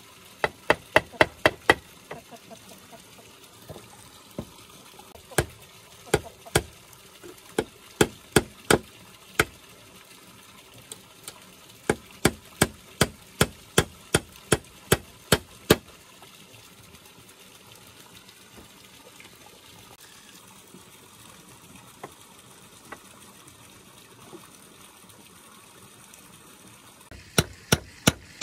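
Runs of quick, sharp blows of a hand tool on wood, about four a second, in bursts of several seconds with pauses between them.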